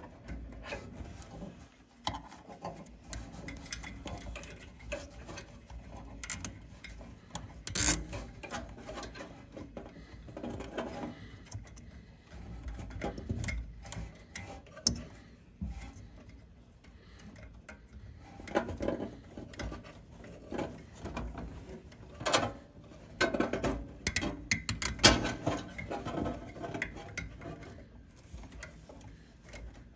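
Wiring bundles and a plastic zip tie being handled inside an espresso machine: irregular rustling and small plastic clicks. The clicks come in denser bunches in the second half.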